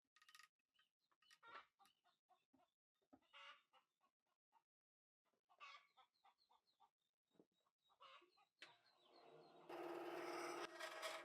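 Faint clucking of chickens, mixed with short, repeated high chirps. About nine seconds in, a louder steady scraping, rubbing sound starts and takes over.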